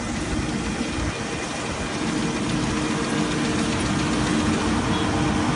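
Crawler-type rice combine harvester running as it cuts along the paddy edge: a steady engine and machinery drone with a constant hum, growing a little louder as it comes closer.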